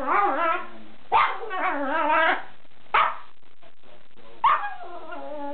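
Yorkshire terrier giving a run of high-pitched yips and whiny barks with wavering pitch, about four outbursts with the longest lasting over a second, as he works himself up after a bath.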